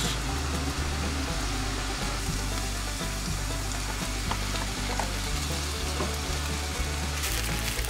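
Onions and sausage sizzling in a frying pan as boiled spaghetti is tipped in and stirred with chopsticks, with small ticks of the chopsticks against the pan. The sizzle grows louder and more crackly near the end.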